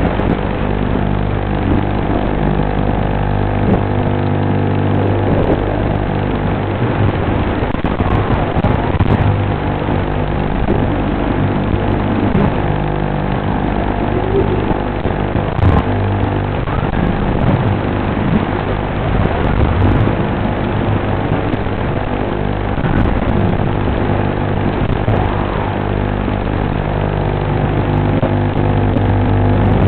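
Brushless motors and propellers of a 2-inch 4S micro FPV quadcopter in flight: a steady buzz whose pitch rises and falls now and then with the throttle.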